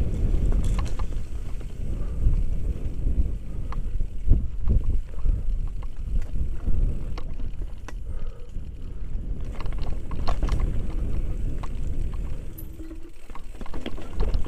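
Mountain bike riding down a rough dirt and rock trail: steady rumble of tyres on the ground and wind on the microphone, with frequent sharp clicks and rattles from the bike hitting rocks and roots. It eases off for a moment about two seconds before the end.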